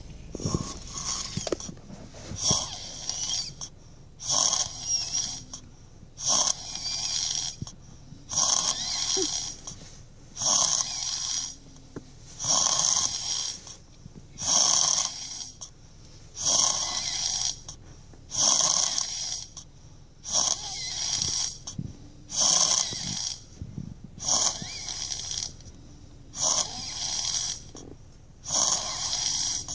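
A child snoring in a steady rhythm, one hissy snore about every two seconds.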